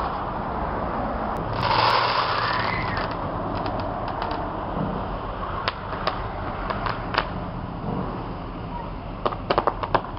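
Fireworks going off: scattered sharp pops, then a quick cluster of crackles near the end from crackling star bursts, over a steady background rumble with a brief rushing swell about two seconds in.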